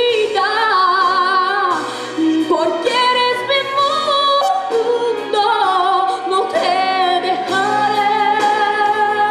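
A 12-year-old boy singing solo into a microphone, with long held notes and wavering vibrato, over an instrumental accompaniment.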